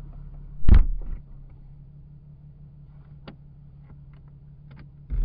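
Two heavy thumps, about a second in and again near the end, with a few light clicks between them, over a steady low hum.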